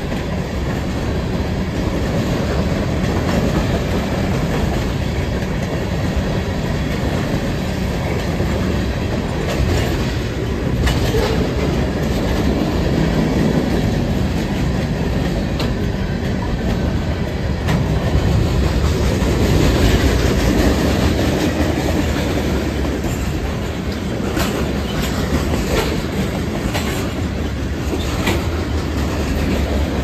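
A freight train's cars (covered hoppers, boxcars) rolling past: a steady rumble of steel wheels on rail, with scattered clicks and clanks, more of them in the second half.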